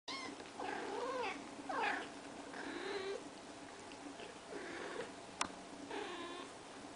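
Siberian kittens mewing, about five short high calls that rise and fall in pitch. A single sharp click comes about five seconds in.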